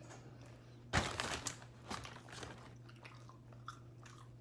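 A person taking a loud crunchy bite about a second in, close to the microphone, then chewing with a few smaller crunches.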